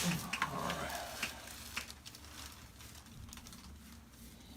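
Rustling and a few light clicks and creaks from a padded chiropractic treatment table as the patient turns over on it, mostly in the first two seconds.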